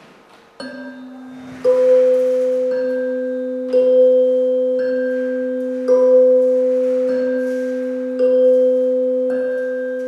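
Two tuning forks on wooden resonator boxes, tuned to a C and the C an octave above, struck again and again with a mallet about once a second, so their two steady tones an octave apart keep ringing together.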